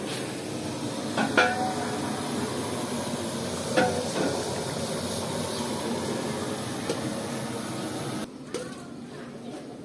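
Steady sizzling hiss of sliced onions and tomatoes frying in oil in a large aluminium pot, with two sharp, briefly ringing clanks of a metal ladle knocking against the pot, about a second in and nearly four seconds in. The hiss drops off suddenly a little after eight seconds.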